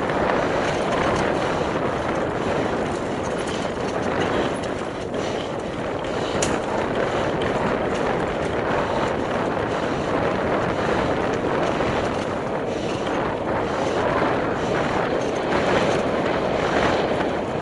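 Mountain bike rolling fast down an enduro trail: steady tyre and wind rush on the microphone, with scattered small clicks and rattles from the bike.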